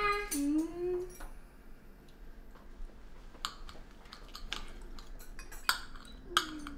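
Knife and fork clinking and scraping on china plates at a dinner table, a scattered run of light clinks.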